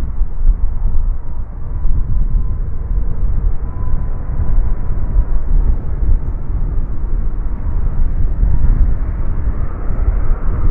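Wind buffeting the microphone in a gusting low rumble, with the faint whine of an approaching Airbus A330-300's Rolls-Royce Trent 700 turbofans on final approach. The engine sound swells near the end as the airliner comes close to touchdown.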